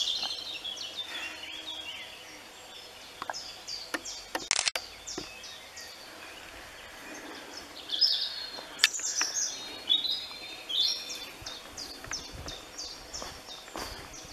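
Wild woodland birds singing, many short high chirps and trills repeating, with a couple of sharp clicks about a third and two-thirds of the way through.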